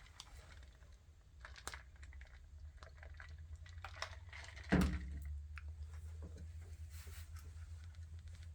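Handling noise: scattered light clicks and taps as a polymer pistol frame with freshly applied grip tape is turned over and inspected, with one louder bump a little past the middle, over a low steady hum.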